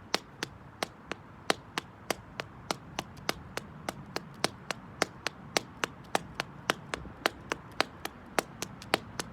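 High-heeled slingback shoes clicking in steady rhythmic steps on concrete, about three sharp heel taps a second, some louder than others.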